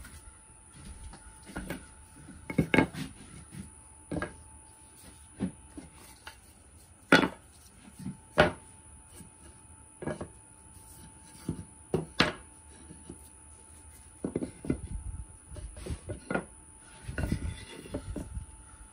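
Wooden frame boards knocking and clattering against a plywood sign and a wooden workbench as they are set in place: irregular sharp wooden knocks, about fifteen in all, a few louder ones in the middle.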